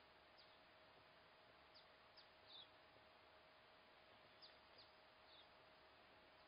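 Near silence: a faint steady hiss and hum, with about eight brief, high, falling chirps scattered through. The loudest chirp comes about two and a half seconds in.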